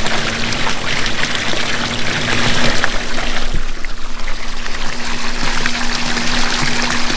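Water pouring from an Intex LED waterfall into an above-ground pool: a steady splashing patter, briefly softer about halfway through, over a steady low hum.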